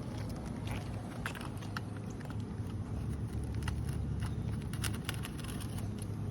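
A utility knife cutting an asphalt roofing shingle: scattered short scratchy clicks over a steady low rumble.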